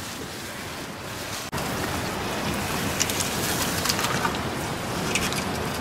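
Meat sizzling in a hot pot over an open wood fire: a steady crackling hiss, louder from about a second and a half in.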